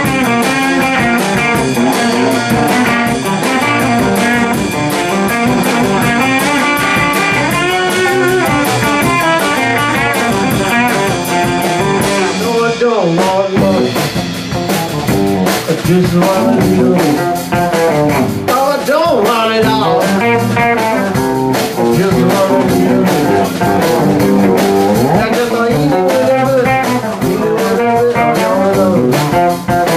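Live band playing an instrumental passage: electric guitars over bass guitar and drum kit, with the guitar bending notes. The drumming gets busier about halfway through.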